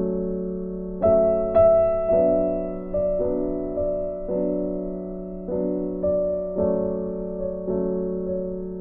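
Background music: a gentle electric-piano piece, chords struck about once a second and left to ring and fade.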